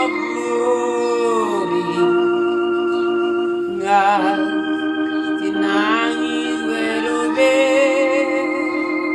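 Organ playing long held chords under a singing voice that holds notes with wide vibrato.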